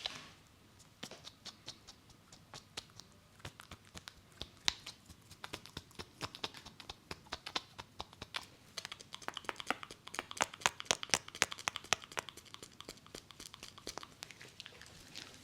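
Hands tapping and patting on a head during an Indian head massage: a long run of quick, light percussive taps that grows faster and louder past the middle.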